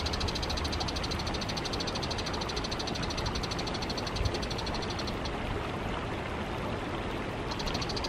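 Shallow stream babbling over a pebble bed, with a high, rapid trill running over it that stops about five seconds in and starts again near the end.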